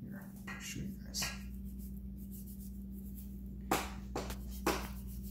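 IKEA 365+ stainless steel santoku knife cutting along the bone of beef short ribs: a few soft scrapes of the blade through the meat, then three sharper, louder strokes about a second apart near the end, the blade scraping on bone or the cutting board. A steady low hum runs underneath.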